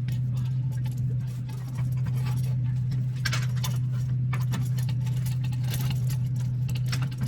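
A vehicle engine running steadily at idle, with irregular metallic clinking and rattling over it.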